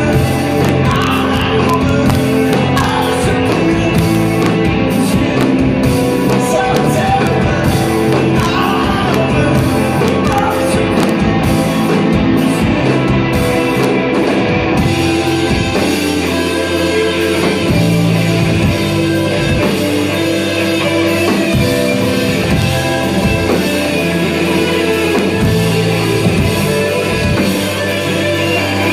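A rock band playing live, with singing over electric guitars and drums.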